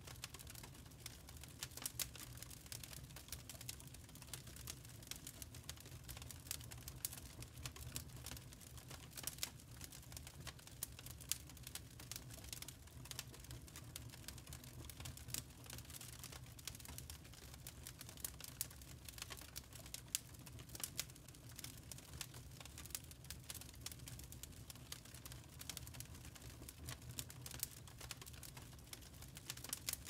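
Burning lump charcoal crackling faintly: many small, irregular sharp pops and ticks over a low steady rumble.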